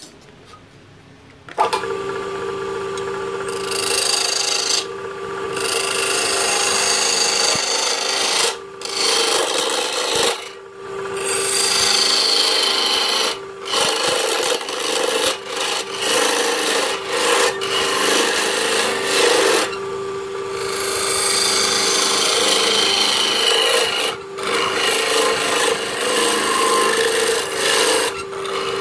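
A wood lathe's motor starts about a second and a half in and runs with a steady hum. A hand-held turning tool scrapes and cuts into the spinning wooden disc, with brief pauses each time the tool is lifted off the wood.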